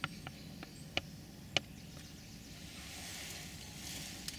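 Quiet woodland ambience: a handful of short, sharp ticks in the first two seconds, then a soft hiss that swells and fades in the second half.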